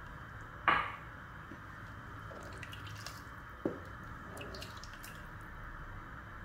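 Wooden spoon stirring chicken pieces in a thin sauce in an aluminium pot: liquid sloshing and dripping, with a sharp knock of the spoon against the pot under a second in and another about halfway through, over a steady hiss.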